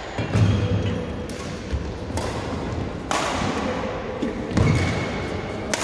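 Badminton rally: about four sharp racket-on-shuttlecock hits, roughly a second apart, with heavy thuds of players' feet landing on the court floor near the start and again about two-thirds of the way through.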